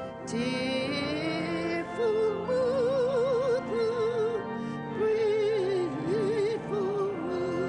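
Music: a single high voice singing in long, held phrases with wide vibrato, over steadily held accompanying notes.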